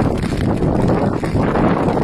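Strong wind buffeting the microphone: a steady rushing rumble, heaviest in the low end.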